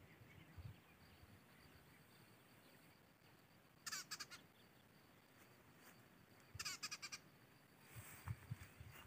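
Two short, rapidly pulsing animal calls, one about four seconds in and another a few seconds later, over a faint, near-silent background.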